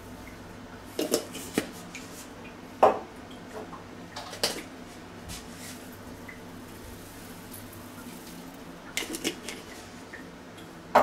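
A small glass herb jar with a metal lid clinking and tapping over a cast-iron Dutch oven as dried parsley and chives are shaken out. There are a handful of sharp taps, the loudest about three seconds in and a short cluster near the end, over a steady low hum.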